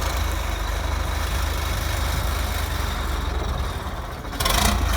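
Heavy concrete truck's diesel engine running steadily with a low drone. A sudden loud hiss starts near the end.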